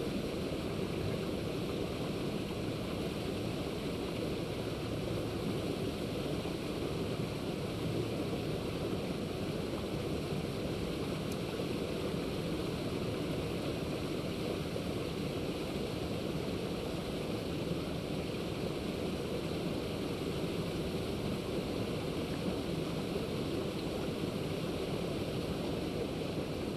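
Steady, even rushing noise with no distinct sounds standing out.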